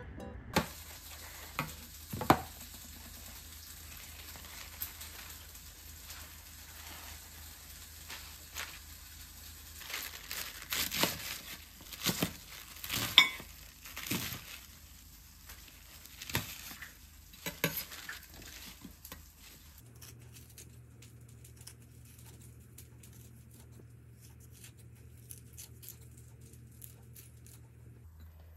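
A chef's knife chopping crisp lettuce on a metal cutting board: irregular crunching cuts and sharp knocks of the blade on the board, coming thickest in the middle. In the last few seconds, only faint small snips as kitchen scissors cut bell pepper into strips.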